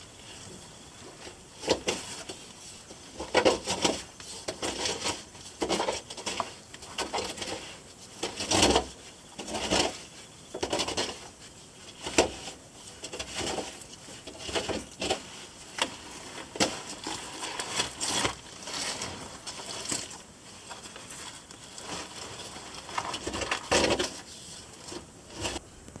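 Irregular scraping, rustling and knocking of a caver squeezing through a tight, muddy cave passage: oversuit and boots rubbing and bumping against rock and mud.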